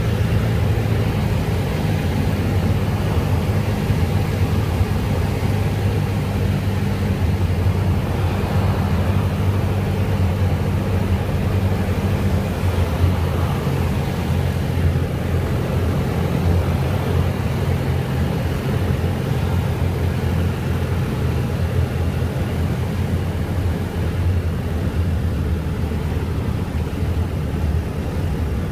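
Cessna 172's piston engine and propeller running steadily, a low droning note; its tone shifts slightly about twelve seconds in.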